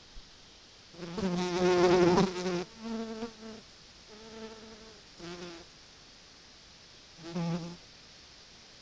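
A flying insect buzzing close to the trail camera's microphone in several passes. The first, about a second in, is the loudest and longest; four shorter buzzes follow, the last near the end.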